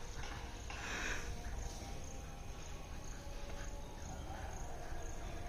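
Quiet outdoor background with insects chirping faintly, a steady low rumble underneath, and a brief soft rustle about a second in.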